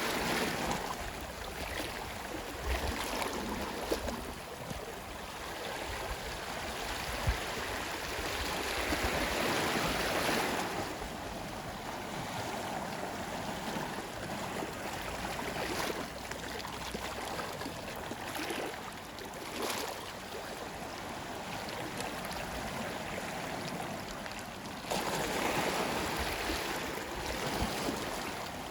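Sea waves washing onto a shore: a continuous rush of surf that swells louder about ten seconds in and again near the end.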